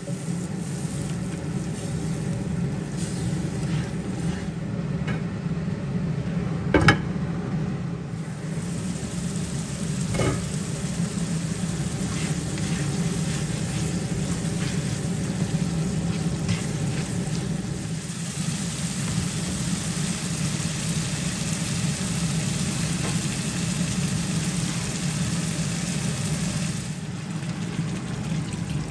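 Curry gravy sizzling and simmering in a nonstick frying pan while a spatula stirs and scrapes through it, over a steady low hum. A sharp knock comes about seven seconds in and a fainter one about three seconds later.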